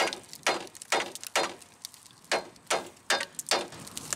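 Big hammer striking a tie rod end's ball stud, its nut threaded back on, to drive the stud up and out of the steering knuckle: about eight sharp metal blows in two runs of four, with a short pause between.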